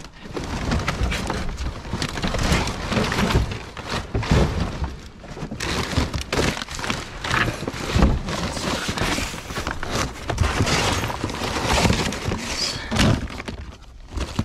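Debris in a dumpster being dug through and shifted by hand: an irregular, continuous run of clattering knocks and scrapes as hard objects knock against each other and the bin.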